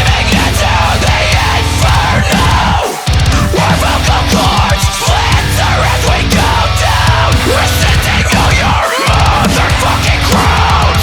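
Heavy metal song with distorted guitars and drums. The low end drops out briefly about three seconds in and again near nine seconds.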